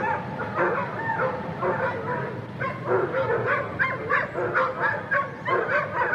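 Many dogs barking and yipping at once, the calls overlapping in a constant, uneven din.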